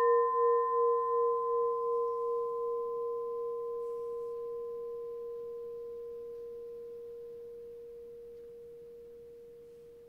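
A singing bowl struck once, ringing with a clear tone and two fainter higher overtones, wavering slowly at first and then fading steadily. A fainter lower tone from an earlier bowl rings on beneath it.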